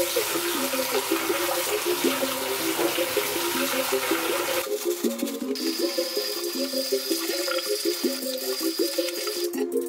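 Water running from a bathtub tap while tie-dyed clothes are rinsed and worked by hand in the tub, with background music playing throughout. About halfway through, the water sound thins and loses its low rumble.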